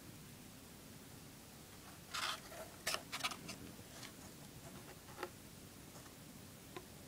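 A few short scratching and rubbing noises close to the microphone: a cluster about two to three and a half seconds in, then a couple of single faint ticks.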